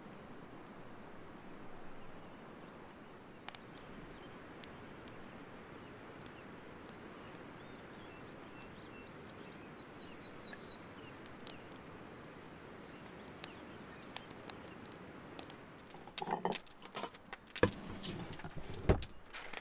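Steady rush of a flowing river with a few faint bird chirps. Near the end, irregular knocks, clicks and rattles of gear being rummaged through in a wooden drawer, louder than the river.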